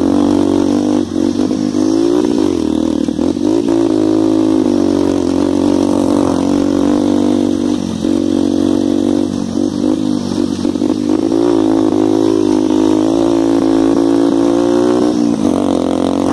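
125 cc dirt bike engine running under throttle while riding. The pitch dips briefly and climbs again a few times.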